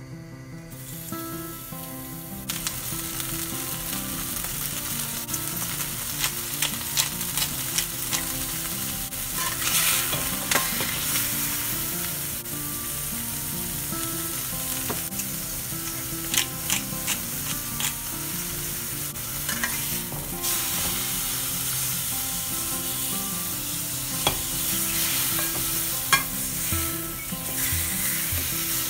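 Pork heart sizzling in hot oil in a frying pan. The sizzle starts about two seconds in, as the meat goes into the pan, and carries on steadily, with scattered sharp clicks and scrapes of a spatula against the pan.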